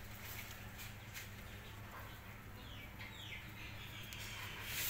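A young chicken peeping, a few quick falling chirps in the middle, over a steady low hum. A brief rustling noise comes near the end.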